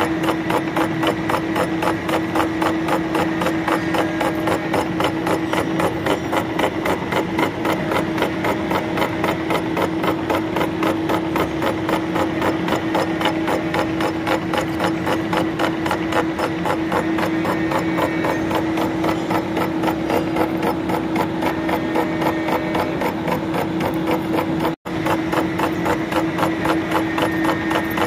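Milling machine face-milling a metal block with a large face-mill cutter: a steady machine hum under a rapid, even chatter of the cutter's inserts biting into the metal. There is a very brief cut-out in the sound a few seconds before the end.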